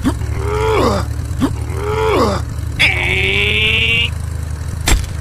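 Steady low tractor engine rumble under a toy tractor's chain tow, with two voice-like cries falling in pitch in the first half and a longer held cry about three seconds in. A sharp knock near the end.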